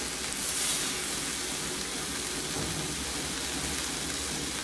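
Bacon and fat sizzling steadily on a hot ridged stovetop grill pan.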